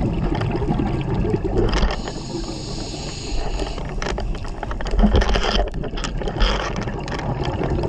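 A scuba diver's regulator breathing, heard underwater through the camera housing. There is a hiss about two seconds in, then shorter bubbling bursts about five and six and a half seconds in, over a constant low water rumble.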